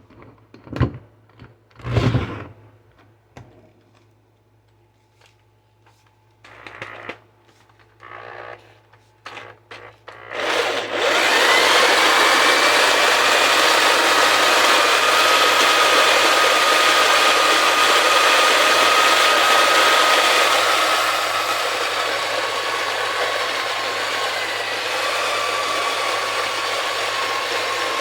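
A few knocks and clicks, then about ten seconds in an electric drill spins up turning a hand coffee grinder, running steadily with a whine over a grinding hiss as it grinds the beans. The level eases a little about two-thirds of the way through.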